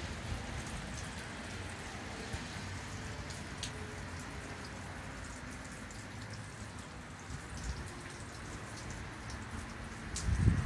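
Rain falling during a thunderstorm, with scattered drops ticking over a steady wash of noise. Near the end a gust of wind hits the microphone with a loud low rumble.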